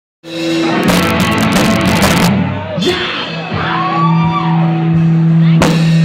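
Rock music with guitar: a held low note rings under drum and cymbal hits, the drums drop out in the middle and come back in near the end.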